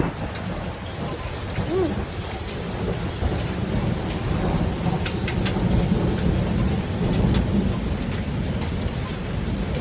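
Hail coming down hard with rain: a steady dense rush studded with many scattered sharp hail strikes.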